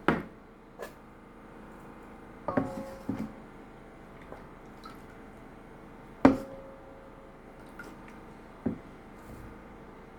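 Plates and lids knocking and clinking against each other and the pot: a sharp knock at the start, a cluster of clinks around two and a half to three seconds, the loudest knock about six seconds in, and a last one near nine seconds, each with a brief ring.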